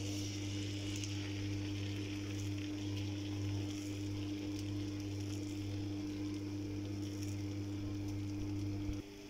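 A steady low hum with a faint high hiss over it, which cuts off abruptly near the end.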